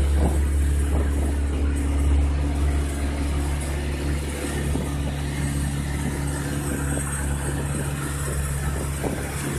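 Engine of a motorized outrigger boat (bangka) running steadily under way, a low, even drone with water rushing and splashing along the hull and outrigger.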